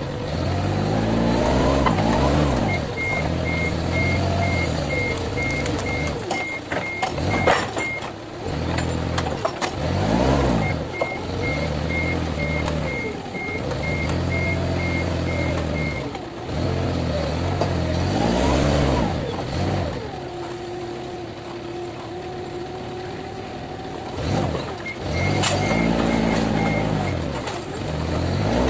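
Forklift engine revving up and falling back several times as the hydraulic levers are worked, with the reversing alarm beeping at about two beeps a second in three stretches.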